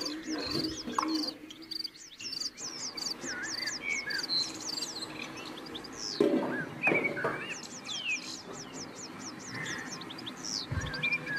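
Birds chirping in quick runs of high, falling chirps, with a few knocks from a wooden spoon and a glass lid on a steel cooking pot.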